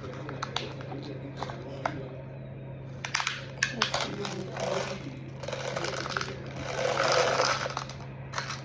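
Scattered clicks and taps of plastic craft materials being handled, with a louder rustle near the end, under a steady low hum.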